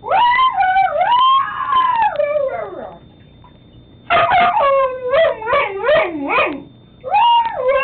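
Husky howling and 'talking' in wavering woo-woo calls: one long call that rises and falls, a pause of about a second, a run of shorter calls, then another call starting near the end.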